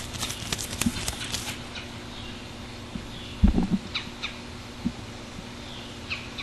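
Leaves on a small branch rustling and crackling as a hand rubs them, picked up by a Rode VideoMic. The crackling stops after about a second and a half, and a single low thump comes about halfway through, over a faint steady hum.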